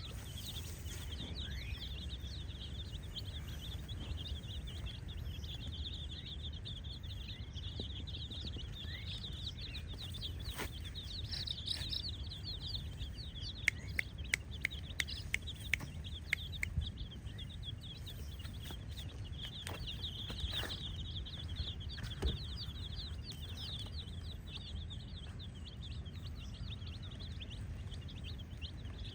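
A crowd of baby chicks peeping continuously, many short high peeps overlapping. About halfway through comes a run of sharp clicks, roughly two a second for a few seconds.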